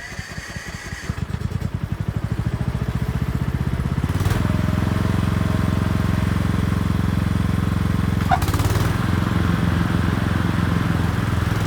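Petrol lawnmower engine running steadily, growing louder about four seconds in as it comes closer.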